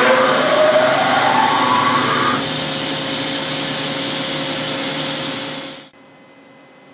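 Doosan V550 CNC vertical turning lathe running: a whine rising in pitch over the first two seconds or so as the machine speeds up, then a steady machine noise that cuts off abruptly near the end, leaving a faint hum.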